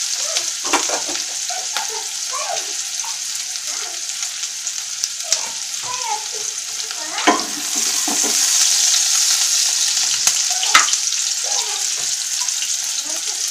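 Sliced onions and green chillies sizzling in hot oil in a non-stick karahi, a steady high hiss. A few sharp clicks and scrapes of a wooden spatula stirring against the pan break through it.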